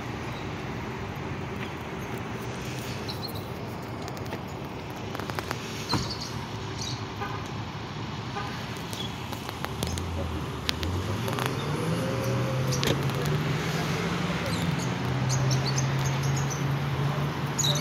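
Steady traffic noise, then from about ten seconds in a nearby vehicle engine running, its low tone stepping up and holding as it grows louder. A few sharp clicks are mixed in.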